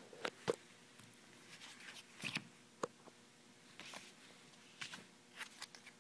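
Faint, scattered clicks and short scuffs of plastic playing cards being picked up and handled.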